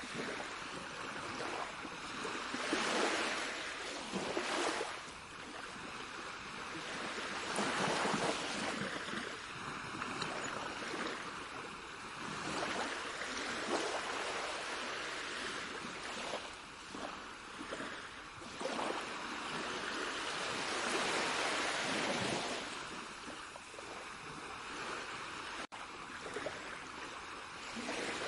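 Sea waves washing in and drawing back, the surf swelling and easing every few seconds, with a momentary cut-out near the end.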